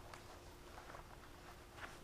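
Near silence: room tone with a faint steady hum and a few soft, faint ticks and rustles.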